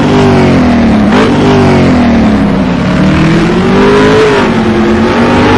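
Loud engine revving, its pitch swinging up and down several times without settling to a steady idle.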